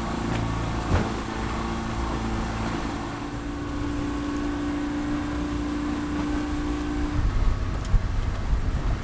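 A boat's engine running steadily with a constant hum, over wash and rumble on deck. About seven seconds in the hum stops and gusty wind buffets the microphone.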